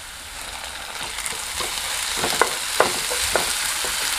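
Chopped onions sizzling in hot oil in a kadhai while a spatula stirs them and scrapes the pan. The sizzle grows louder about a second in, and from about two seconds in the spatula strokes come every half second or so.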